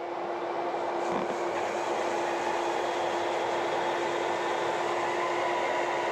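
Tractor pulling a grain cart, running steadily as heard inside its cab: an even mechanical drone with a constant hum.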